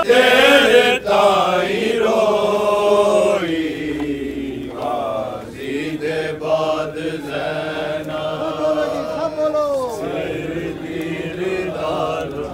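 A man chanting a noha, the Shia mourning lament of a Muharram procession, in long held notes that waver and slide in pitch.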